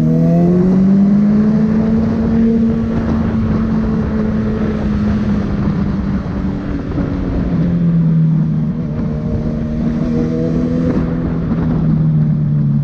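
Honda CB650F inline-four motorcycle engine on the move through a loud aftermarket full sports exhaust: the revs climb in the first couple of seconds, hold steady, ease down a little about two-thirds of the way through and hold again, with wind noise on the microphone.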